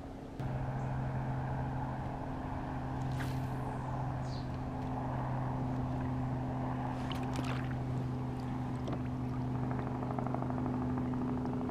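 A boat motor starts up about half a second in and runs with a steady low hum, with a few faint clicks over it.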